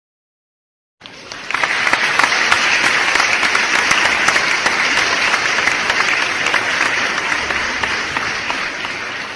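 Crowd applause, a stock sound effect: dense clapping that comes in about a second in, swells quickly, holds, and fades out near the end.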